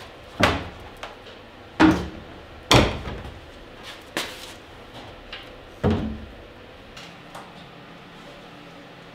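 A series of heavy knocks and bangs, like wood striking wood, about five loud ones over six seconds with smaller knocks between. After that come only faint handling sounds.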